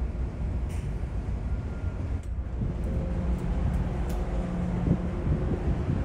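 Steady low rumble of a large car ferry under way, its engines and machinery droning through the hull. About two seconds in, the sound opens out as the deck is reached, and a faint steady hum joins the rumble.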